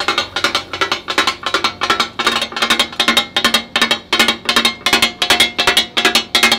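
Two steel spatulas rapidly chopping and striking a hot iron tawa griddle in a rhythmic takatak beat, about five clanging strikes a second, as meat and butter are cut up on it.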